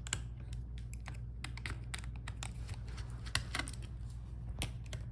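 Irregular small clicks and taps of a screwdriver and screws as screws are taken out of a laptop's hinge and boards, over a steady low hum.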